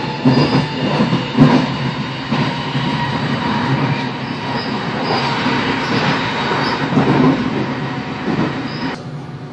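Passenger train running at speed, heard from inside the carriage: steady rolling noise with wheel clatter on the rails and brief high wheel squeals. The noise drops off abruptly near the end.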